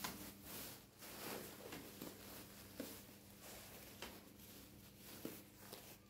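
Faint rustling and crinkling of a thin plastic bag of dry food being handled, with a few light clicks and taps.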